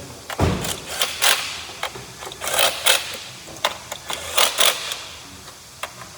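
A loud thump about half a second in, then irregular clicking and clattering.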